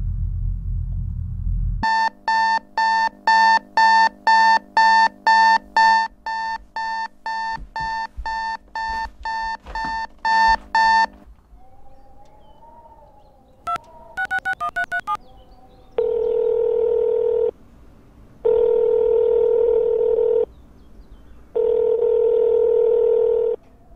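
Digital alarm clock beeping at about two beeps a second, then switched off. Next comes a quick run of phone keypad tones as a number is dialled. Three long ringback tones follow as the call rings out, heard through the phone's earpiece.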